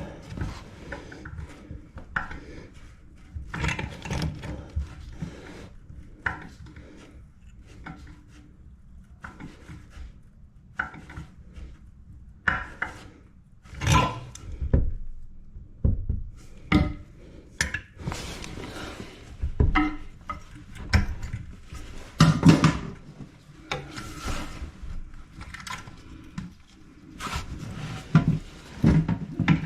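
Irregular knocks, scrapes and rubbing as hand tools and toilet tank parts are worked and tightened, with a few sharper knocks among them.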